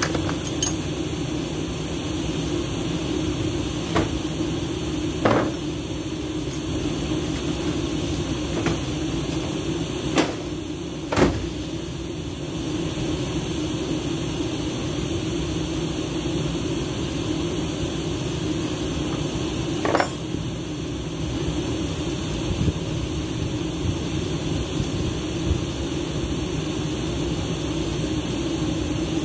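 Scattered sharp metal knocks and taps from work on CVT transmission parts, the loudest two about ten and eleven seconds in and another near twenty seconds, over a steady background hum.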